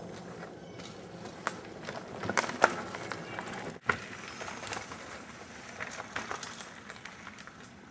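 Mountain bike rolling down a rough dirt trail: steady tyre and riding noise broken by sharp clacks and rattles as the bike goes over rocks and roots. It fades toward the end.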